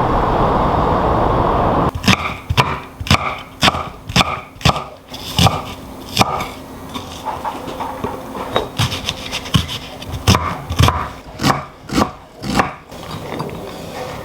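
A steady hiss for about two seconds, then it cuts off and a kitchen knife strikes a wooden cutting board again and again, about two chops a second, uneven in strength, while ingredients are cut up.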